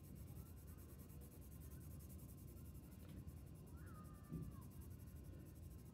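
Faint scratching of a colored pencil shading on paper.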